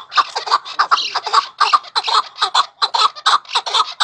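Chukar partridge calling: a fast, loud run of repeated chuck notes, several a second, in its rallying chukar call.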